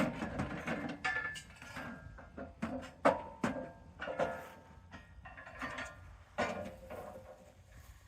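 Wooden boards knocking and clattering together as they are handled, in irregular knocks, some ringing briefly.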